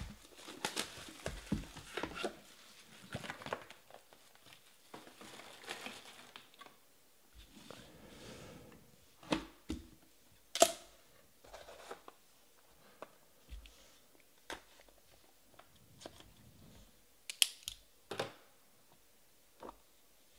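Plastic shrink wrap being torn and crinkled off a sealed trading-card box for the first several seconds, then the cardboard box and lid being handled, with a handful of sharp clicks and knocks.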